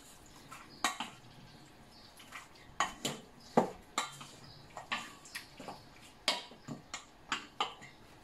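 A spatula clinking and scraping against a stainless steel mixing bowl while stirring raw chicken pieces, in about fifteen irregular knocks.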